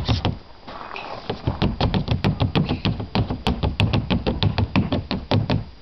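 A toddler tap dancing: quick stamping taps of his feet, several a second, pausing briefly about half a second in and stopping just before the end.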